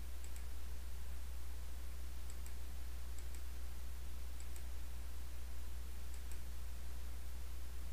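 Faint clicks of a computer mouse, several coming in quick pairs, over a steady low electrical hum and hiss.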